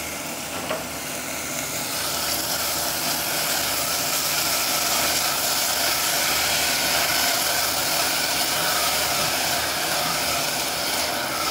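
Cherry tomatoes, onion and garlic sizzling in olive oil in a steel saucepan: a steady hiss that grows louder about two seconds in.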